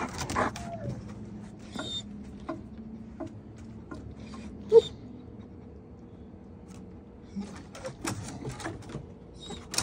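Dogs moving about on a wooden deck, with scattered light taps and scrapes, and one brief high whimper from a dog about five seconds in.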